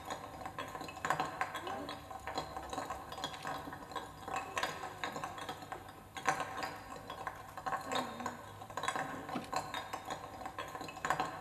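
Live experimental stage accompaniment: scattered small metallic clicks, clinks and scrapes over a few faint held tones, played on an instrument laid flat on a table.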